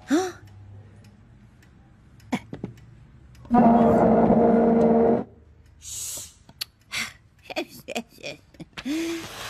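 Cartoon character noises and sound effects without words: short pitched grunts and small clicks, with one loud, steady, buzzing sound lasting about a second and a half in the middle.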